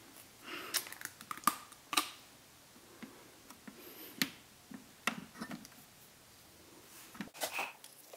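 Scattered light clicks and taps of hard plastic as a GoPro curved adhesive mount is handled and pressed against a motorcycle helmet shell, with a quick cluster of clicks near the end.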